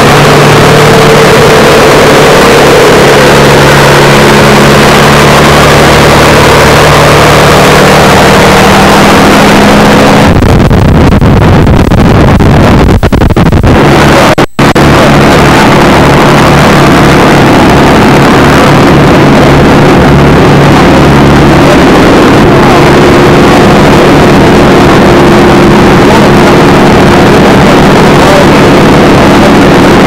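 P-51 Mustang's Merlin V-12 engine running on the ground with its propeller turning, a loud steady drone. About ten seconds in it turns rougher and noisier, then cuts out for an instant at a tape edit, after which a steady engine drone carries on.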